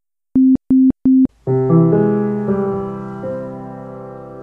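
Intro jingle: three short electronic beeps, all on the same low pitch, then about a second and a half in, keyboard chords enter note by note and ring on, slowly fading.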